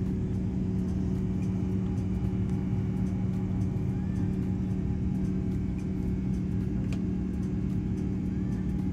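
Airbus A350 cabin noise in flight: the steady low rumble of the Rolls-Royce Trent XWB engines and airflow heard from inside the cabin, with a constant hum.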